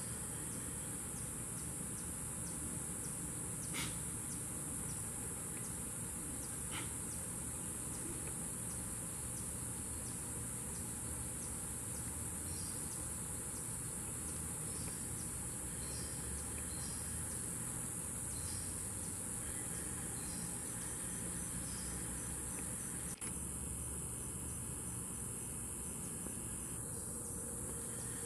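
Steady, high-pitched drone of a tropical insect chorus, with two faint clicks about four and seven seconds in. The drone breaks for an instant about 23 seconds in.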